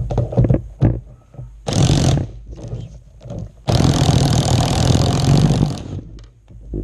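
DeWalt 20V cordless impact hammering on a chain breaker's screw: a short burst about two seconds in, then a longer burst of about two seconds, driving the pin out through a roller chain link.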